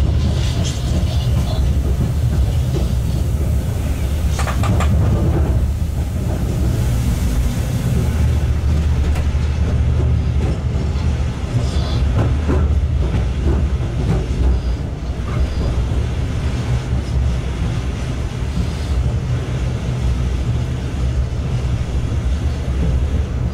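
Freight locomotive running light, heard from inside its cab: a steady low rumble of the running gear on the rails. The wheels clack over rail joints and points in two short clusters, about four seconds in and again near twelve seconds.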